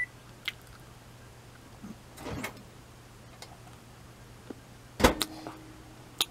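A few scattered clicks and knocks of handling, the loudest a sharp knock about five seconds in followed by a brief low hum.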